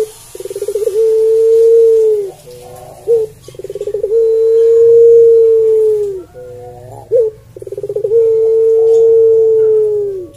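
Barbary dove of the Indonesian puter pelung type cooing: three long drawn-out coos about every four seconds, each starting with a quick stuttering run and held as one long steady note that droops at the end, with a short lower coo and a quick upward flick between them.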